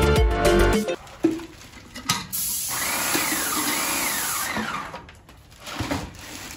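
Background music ends about a second in. Then an airless paint sprayer hisses steadily for about three seconds as it sprays paint, with a fainter tone over it that rises and falls in repeated swells.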